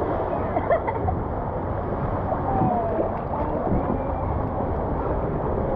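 Water splashing and churning as an inner-tube rider shoots out of a water slide into the splash pool, then water sloshing around a tube floating in the pool. The water noise is steady, with a few sharper splashes about a second in.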